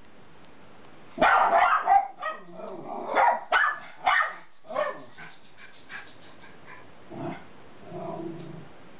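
Two miniature schnauzers barking high-pitched, in a loud cluster of sharp barks about a second in, then single barks spaced out. Near the end a lower, steadier grumbling growl.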